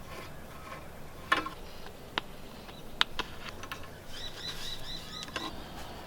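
A few sharp clicks and knocks, then a quick run of about six high chirps from a bird.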